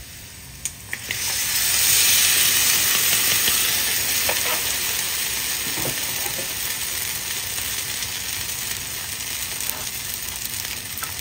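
A flour-and-water mixture poured into a hot frying pan of fried Spam and onions, sizzling loudly. The sizzle surges about a second in, then slowly eases into a steady simmering hiss, with a few light utensil clicks.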